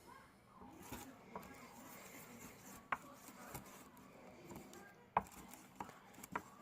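Chilled soap-and-water slime being mixed by hand: faint soft rubbing and squishing with a few sharp clicks, the loudest about five seconds in.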